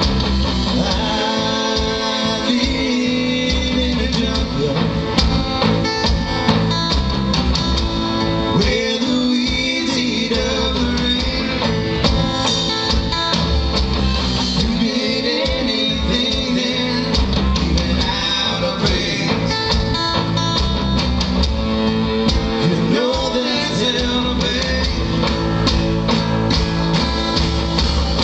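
Live rock band playing: electric and acoustic guitars over a drum kit.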